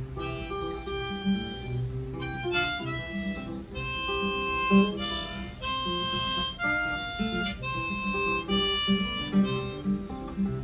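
Harmonica playing the song's melody in a series of held notes over acoustic guitar accompaniment in an instrumental intro; the harmonica stops shortly before the end.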